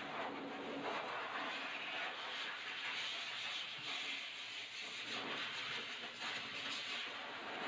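High-velocity pet dryer blowing a steady rush of air through its hose onto a wet dog's coat, the sound swelling and easing a little as the nozzle is moved.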